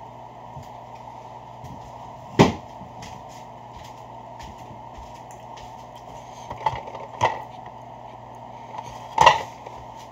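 A few sharp knocks over a steady hum. The loudest comes about two and a half seconds in and another near the end, with two smaller ones in between.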